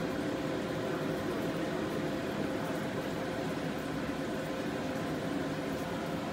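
Aquarium air pump and airstone running: a steady hum and hiss of bubbling, with an even, unchanging level.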